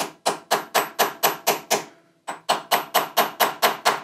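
Hammer blows on an old bearing race used as a drift, driving a new frozen steering-head bearing race into the frame of a 1978 Triumph Bonneville T140V. Steady metal-on-metal strikes, about four a second, each ringing briefly, with a short pause about two seconds in.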